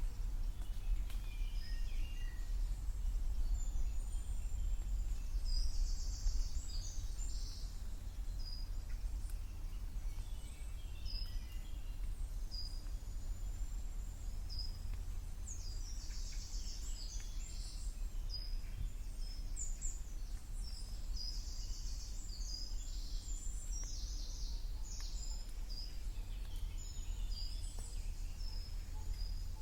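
Woodland songbirds singing and calling: many short high-pitched chirps and trills, busiest in the middle stretch, over a steady low rumble.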